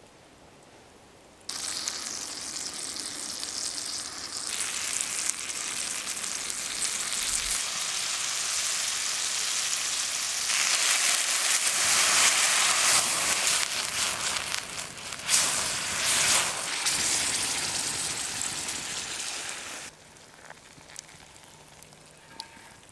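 Bananas and blueberries frying in a hot pan over a campfire: a steady sizzle with crackles that starts suddenly, grows louder toward the middle with a sharp crack about 15 seconds in, and cuts off about 20 seconds in.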